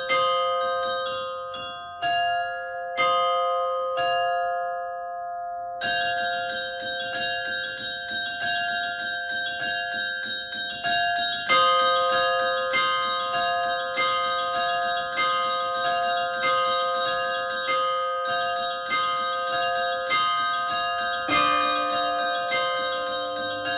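Russian Orthodox church bells ringing an Easter peal: several pitched bells struck in turn, each note ringing on under the next. The strikes are sparse at first, then settle into a quicker, denser run of about two a second.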